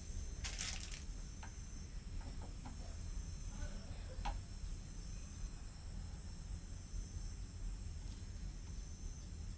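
Steady high-pitched chorus of insects over a low background rumble, with a few faint clicks.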